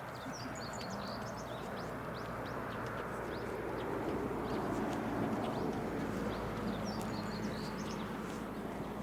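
A small songbird singing a quick run of high chirps, heard twice about six seconds apart, over a steady low background noise.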